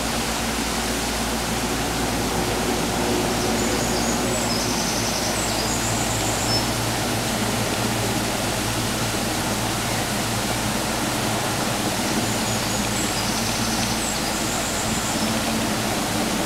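Small waterfall spilling over a low stone wall from a spring-fed pool: a steady rush of falling water.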